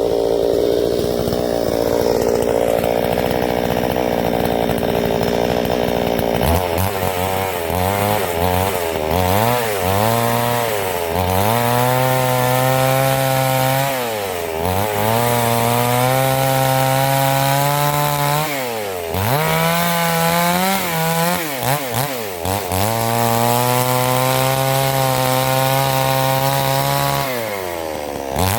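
Chainsaw on a vertical chainsaw mill ripping along a log, running at high revs in the cut. The engine pitch sags and recovers about four times as the saw bogs under load.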